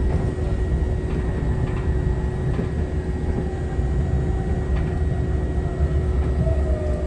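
City bus heard from inside the cabin while moving: a steady low rumble, a few faint knocks, and a thin whine that falls slowly in pitch over the last few seconds as the bus slows.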